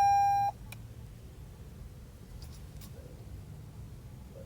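A single steady electronic beep that cuts off about half a second in, then a low faint hum with a few small clicks.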